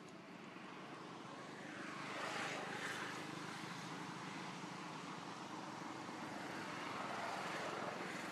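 Engine noise of motor traffic passing at a distance, with a low steady hum underneath; it swells twice, about two and a half and seven and a half seconds in, as vehicles go by.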